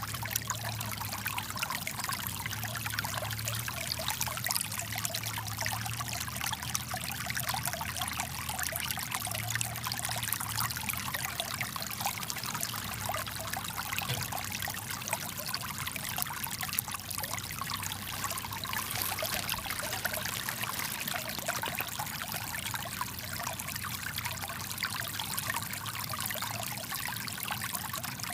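Small brook running high with rainwater, the water trickling and pouring steadily over stones.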